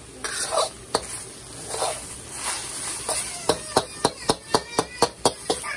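Metal spatula scraping and tapping against a steel wok while breaking up scrambling eggs; a few scrapes at first, then from about three seconds in a quick, even run of taps, about four a second.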